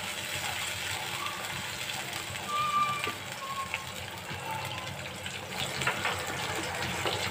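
Chopped onions and spice pastes sizzling and bubbling in oil and water in a non-stick wok, with a wooden spatula stirring and scraping against the pan. A brief faint high tone sounds about two and a half seconds in.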